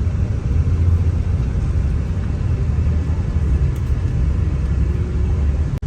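Steady low rumble of a bus in motion, engine and road noise heard from inside.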